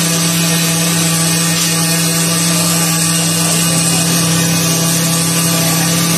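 Workshop machine motors running with a steady, even hum and no breaks.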